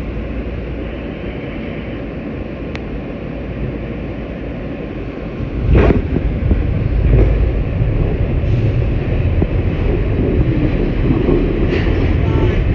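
R160 subway car pulling out of a station: a steady low rumble, then about six seconds in a sudden jolt as the train starts to move, after which the rumble of the moving car gets louder.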